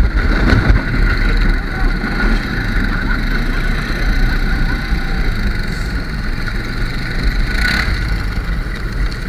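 ATV engine running under way, with a heavy low rumble and a steady high whine.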